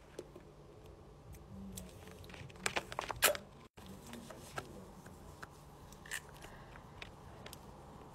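Close-up crunchy biting and chewing, with a quick run of loud crunches about three seconds in and softer scattered crunches and clicks after.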